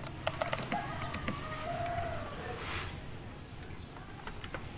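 Small plastic clicks and taps as a DJI Pocket 2 camera is pushed and fitted into a plastic neck-mount frame clip by hand, mostly in the first second. A faint wavering call sounds in the background, and a brief hiss comes about halfway through.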